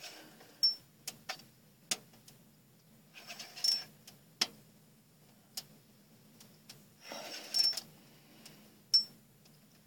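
Ice-fishing rod and reel handled while jigging the line: scattered sharp clicks and ticks, with two short rustles carrying a brief high squeak, about a third of the way in and again near three-quarters.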